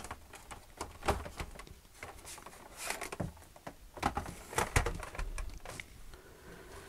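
Scattered clicks and knocks from hands handling a Sinclair ZX Spectrum +2A computer, its plastic case shifted and turned round on the desk after a plug is fitted at its rear sockets.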